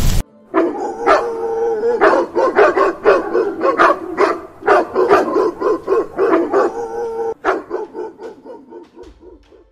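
Dogs barking, a fast run of short, repeated barks that grows fainter over the last couple of seconds.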